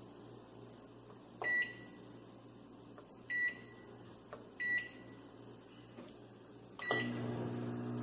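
Panasonic microwave oven's control panel beeping four times, short high beeps as its buttons are pressed, then the oven starting up about seven seconds in and running with a steady hum.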